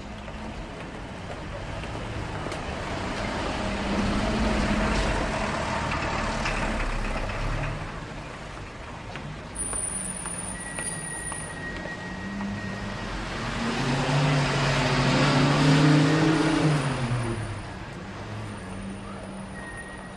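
City street traffic: vehicles passing on a road, with two swells as they go by. The louder one, about two-thirds of the way through, is a heavy vehicle whose low engine hum drops in pitch as it passes.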